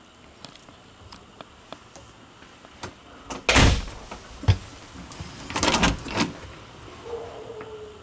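A lightweight RV interior door being handled. There are small clicks at first, then a short loud rush about three and a half seconds in and a single knock about a second later, followed by a longer rattling rush a little before the last two seconds.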